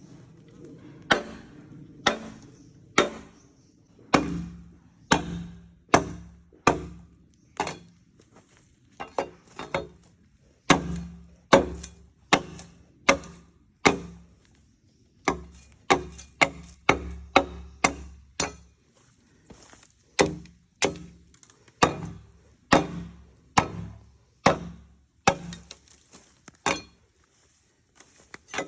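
Bamboo being chopped: a long series of sharp strikes at an uneven pace of one to two a second, with a quicker run of blows in the middle.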